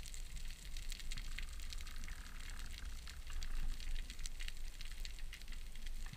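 Underwater reef ambience: a dense, irregular crackle of sharp clicks from snapping shrimp, over a low steady rumble of water against the camera housing.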